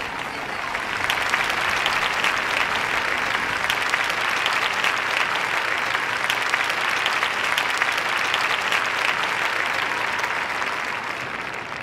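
Concert audience applauding steadily, tapering off near the end.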